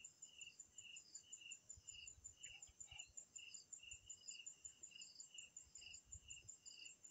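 Faint chirping of insects: a high, fast pulsing trill with a lower chirp repeating about twice a second, steady throughout.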